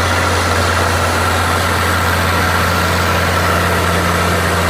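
Tractor engine idling steadily: an even, low engine hum with no change in speed.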